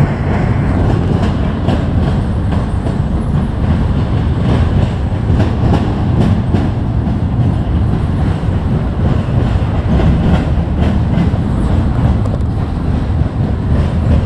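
CSX double-stack intermodal freight train rolling past: a steady low rumble of the well cars with irregular clacks of wheels over the rail joints.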